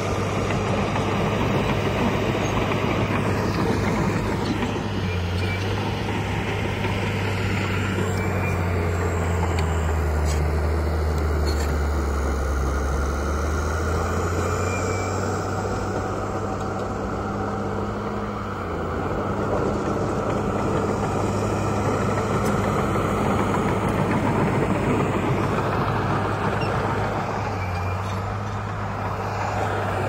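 Heavy diesel engine of earthmoving machinery running steadily. Its pitch drops about five seconds in, stays lower for roughly ten seconds, then picks up again past the middle, with a shorter dip near the end.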